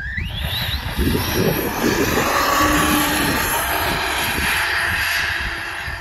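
ARRMA Outcast 6S RC truck's brushless electric motor whining up in pitch as the truck accelerates hard, then running at speed down the asphalt and fading as it pulls away near the end.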